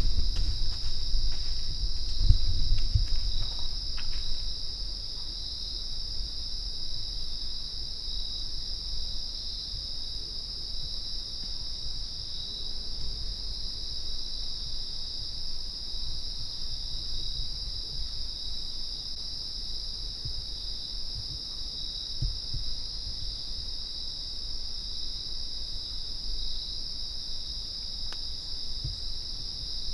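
Steady, high-pitched chorus of insects in the woods, a continuous even trill. A low rumble and a few soft knocks sit under it in the first few seconds, then fade.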